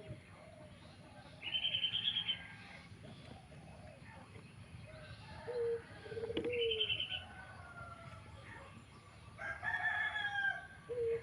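Dove cooing: a short, low, pulsed coo phrase that recurs about every five seconds, with higher bird calls in between.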